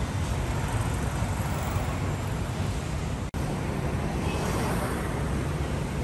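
Steady street traffic noise, a dense low rumble of passing vehicles, which cuts out for an instant a little past halfway.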